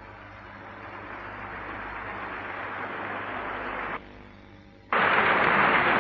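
Audience applauding, growing louder over the first few seconds, breaking off suddenly about four seconds in, then coming back much louder about a second later.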